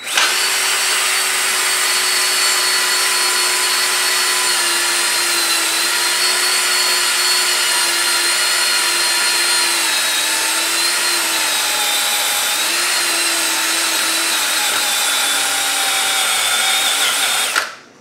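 Cordless drill spinning a pinstripe-remover disc against an alloy wheel rim, burning off leftover wheel-weight adhesive. A steady whine that dips slightly in pitch a couple of times as it is pressed in, then stops shortly before the end.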